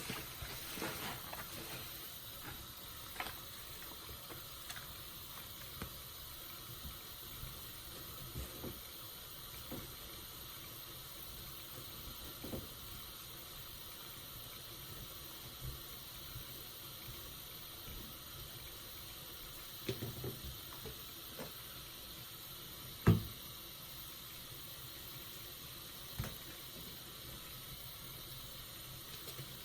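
Soapy sponge being handled: faint wet crackling of lather with scattered small clicks and pops, and one sharper click about three-quarters of the way through.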